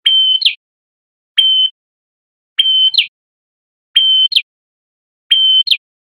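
Male red-headed prenjak (prenjak kepala merah) calling loudly, five times at even intervals of about a second and a half. Each call is a short, steady high whistle that ends in a sharp flick.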